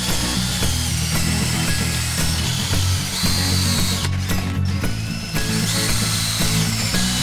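Two cordless drills spinning wire wheels against a cast-iron Ford 200 straight-six engine block to strip it to bare metal. The motors whine and the wire bristles scrub the iron, with the high whine dropping out for about a second midway.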